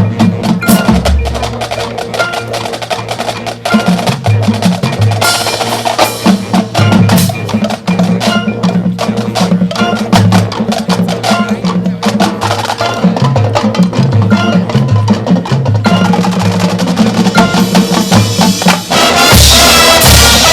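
Marching band playing a percussion-led passage: rapid drum hits over low pitched notes that step from one to the next. The full band comes in louder near the end.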